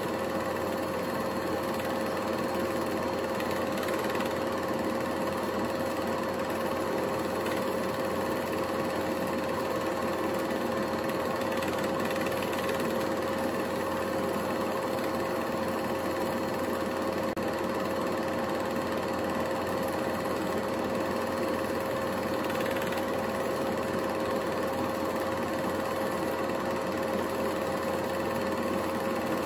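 8mm film projector running steadily: a rapid mechanical clatter from the film-advance mechanism over a constant motor hum.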